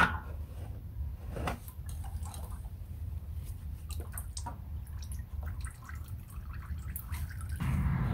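Motor oil dripping and trickling from a loosened oil filter down a flexible funnel into a plastic drain pan, with scattered small ticks and taps of handling. There is a sharp click right at the start, and near the end a louder, steady rush sets in.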